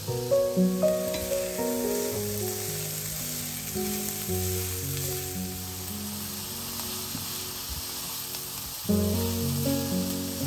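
Diced carrot, onion and red bell pepper sizzling in hot oil in a frying pan while a wooden spatula stirs them. Soft background music plays under it.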